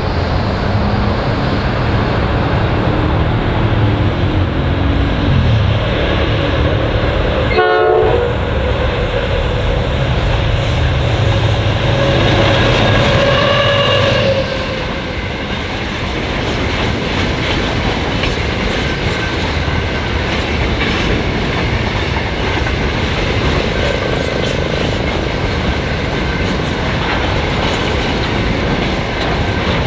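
Two 81 class EMD diesel-electric locomotives pass with their engines running hard. About halfway through they have gone by, and the engine sound gives way to a long rake of empty grain hopper wagons rolling past, their wheels clacking over the rail joints.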